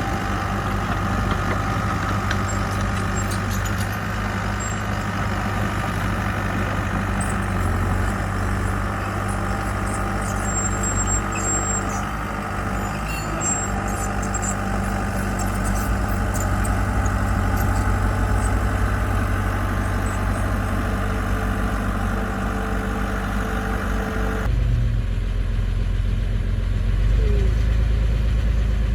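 Diesel engine of heavy construction machinery running steadily, a mini bulldozer or dump truck at work. About 24 seconds in the sound changes abruptly: the higher sounds drop away, leaving a low rumble.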